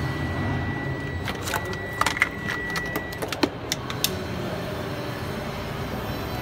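Aftermarket electric tailgate system on a Toyota Harrier: a steady high beep for about three seconds, with a run of sharp clicks and clacks in the middle, the loudest about two seconds in, over a low steady hum.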